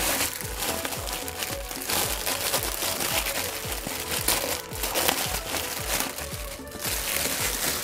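Clear plastic packaging crinkling as it is handled and opened, over background music with a steady beat.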